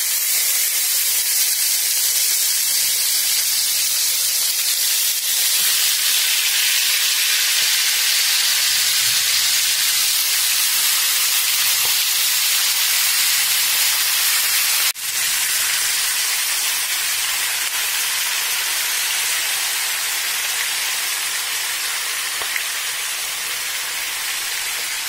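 Yogurt-marinated whole chicken legs frying in a pan of hot oil as they are laid in: a loud, steady sizzle with spattering. It cuts out for a moment about fifteen seconds in.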